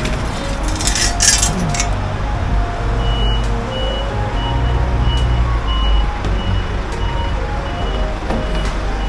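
Steady low engine rumble with a short high beep repeating about every half second from about three seconds in, like a vehicle's reversing alarm. A few brief rattles sound near the start.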